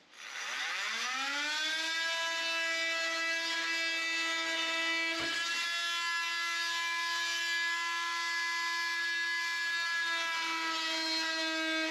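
A handheld power tool's motor spinning up over the first second or so, then running at a steady high pitch. A single knock comes about five seconds in.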